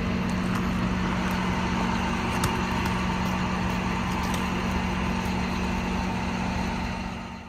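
Truck engine running at a steady idle, a constant low hum with a few faint ticks over it. It fades out at the very end.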